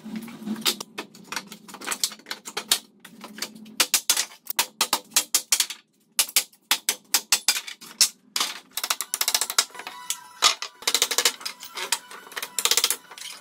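Hammer blows knocking apart a wooden pallet: quick runs of sharp knocks on wood, with short pauses between.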